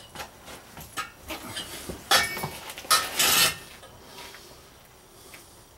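Hand work on an exhaust pipe: scattered light clicks and knocks with a few short rubbing, scraping strokes, the two loudest about two and three seconds in.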